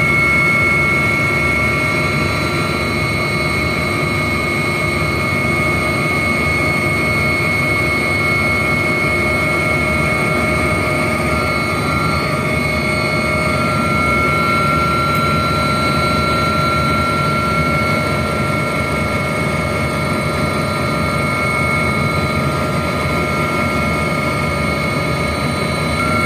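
Aircraft engine heard from inside the cabin: a loud, steady drone with a constant high whine over it.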